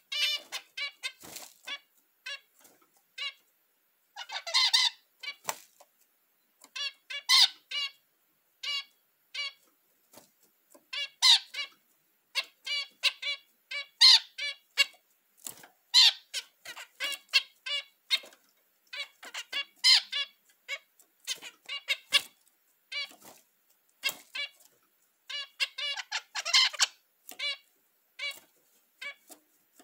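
Zebra finches calling in their cage: a steady string of short beeping calls, with louder bursts of rapid song every few seconds. These are the mating calls.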